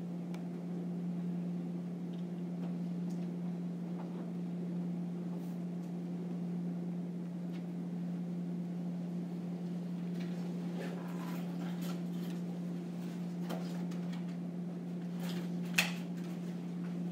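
Room tone of a quiet classroom: a steady low electrical hum with a few faint scattered clicks and taps, and one sharper click near the end.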